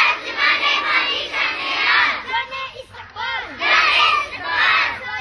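A group of young schoolgirls chanting loudly together in unison, in several bursts.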